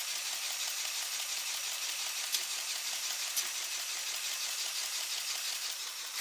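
Small LEGO Technic electric motor (Power Functions M motor) and its plastic gear train whirring steadily as the motorized crane runs, with a couple of faint clicks and a sharper click near the end.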